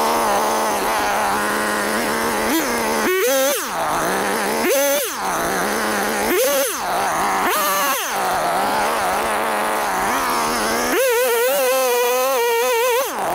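Two-stroke chainsaw cutting into a stump near the ground. The engine runs at lower revs under load in the cut and surges sharply in revs four times as the chain comes free, then is held at high revs for about two seconds near the end before dropping back.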